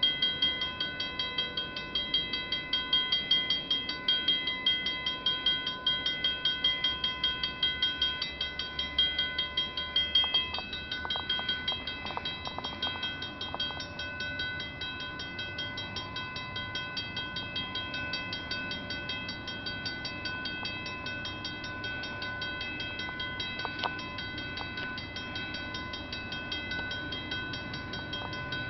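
Railway level-crossing warning bell starts up suddenly and rings in rapid, steady strokes as the crossing signals activate for an approaching train. It is louder for the first ten seconds or so, then a little fainter.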